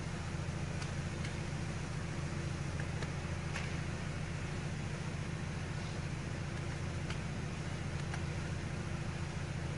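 A car idling: a steady low hum with a few faint ticks.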